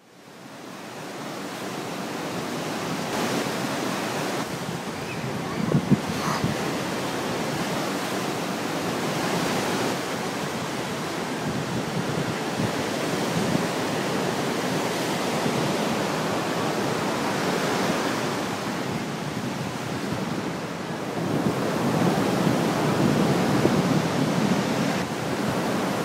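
Ocean surf washing steadily on the beach, with wind noise on the microphone; it fades in at the start, and a couple of brief knocks come about six seconds in.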